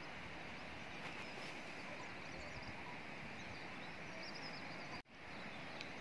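Steady outdoor ambience with a rushing hiss and small birds chirping faintly now and then; all sound drops out for an instant about five seconds in.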